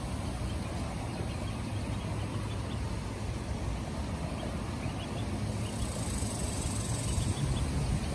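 A steady low rumble, with a few faint, short, high peeps from ducklings scattered through the middle.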